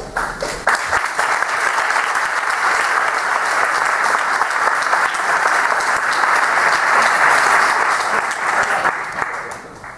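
Audience applauding: dense, steady clapping that builds within the first second and fades away near the end.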